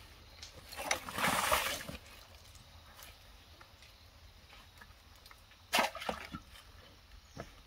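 Water splashing, with one splash lasting about a second that starts about a second in, and a sharp knock near six seconds.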